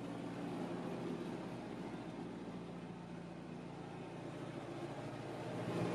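Narrowboat's diesel engine running steadily: a constant low hum with no change in speed.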